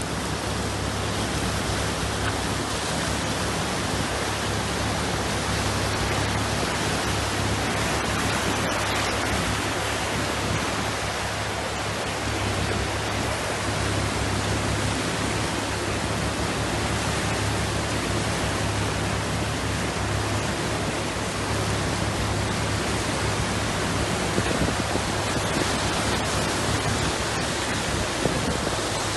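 Torrential rain and rushing floodwater: a steady, unbroken wash of water noise.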